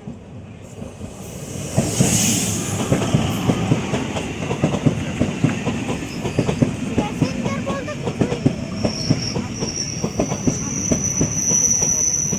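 Electric multiple unit passenger train running past close by, its wheels clacking rapidly over the rail joints; the sound builds up over the first two seconds. About nine seconds in, a thin high wheel squeal joins the clacking.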